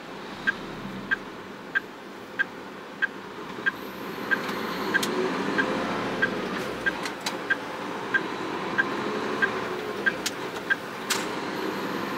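A heavy truck's turn-signal indicator ticking steadily, about one and a half ticks a second, over the truck's diesel engine. The engine grows louder about four seconds in as the rig pulls away from the light. The ticking stops near the end, once the turn is made.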